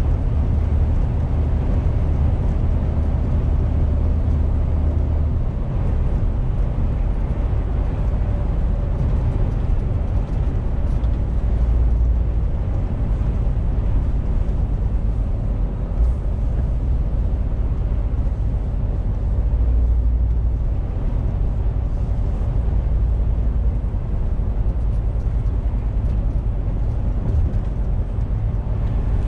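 Inside the cab of a MAN TGX 470 lorry at motorway speed: its straight-six diesel runs steadily with a deep drone over tyre and road noise. The low note changes about five seconds in, and there is a brief bump about sixteen seconds in.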